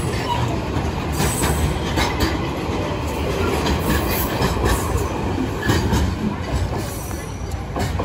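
Container freight train's flat wagons rolling past: a steady heavy rumble of wheels on rails with repeated clicks and knocks, easing a little near the end as the tail of the train goes by.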